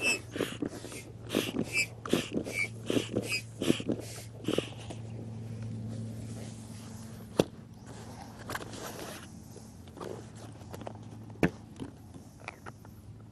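Air pump inflating an inflatable kayak seat: a quick, even run of rushing strokes, about three a second, for the first four or five seconds. Then a few scattered clicks and knocks.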